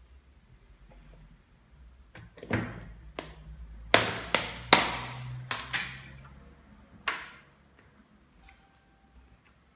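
Snap-on lid of a plastic ice cream tub being pried off: a run of sharp plastic snaps and clicks, the loudest bunched about halfway in, then one more snap a couple of seconds later.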